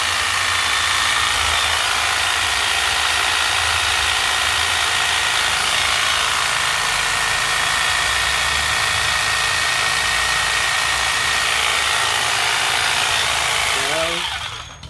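Corded Ryobi electric hedge trimmer (300 W, 350 mm blade) on a test run, motor and blades running at a steady speed. Near the end it is switched off and winds down, the pitch falling.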